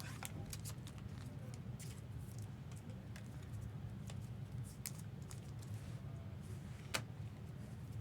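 Trading cards and rigid plastic top loaders being handled: scattered light plastic clicks and card rustles, with one sharper click about seven seconds in, over a steady low hum.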